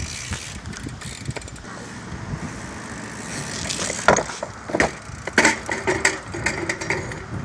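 BMX bike rolling on asphalt, its freewheel hub ticking. From about four seconds in comes a string of sharp clacks and knocks as the bike comes off a bench and clatters onto the asphalt in a bail.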